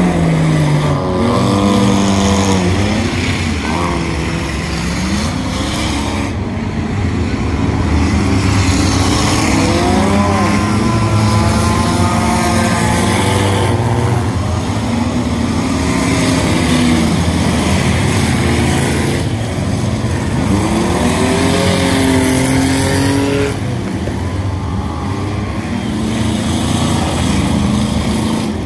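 Pack of stripped-down street cars racing on a dirt oval, several engines revving up and falling off as they pass through the turns, loud and continuous.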